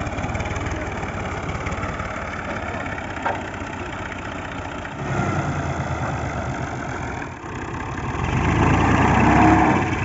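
Fiat 480 tractor's three-cylinder diesel engine running with a steady chug, the revs rising in the last couple of seconds as it puts out black smoke.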